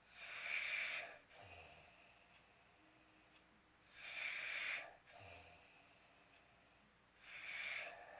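Snoring in sleep: three loud, rasping in-breaths about three and a half seconds apart, each followed by a softer out-breath.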